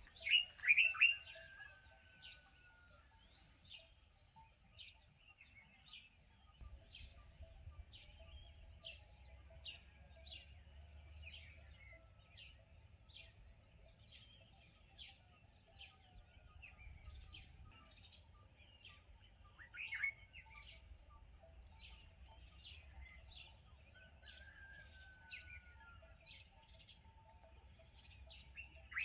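Wild birds calling: a steady series of short high chirps about once a second, with a few louder calls near the start, about 20 seconds in and at the end, some of them trailing off in a long falling whistle.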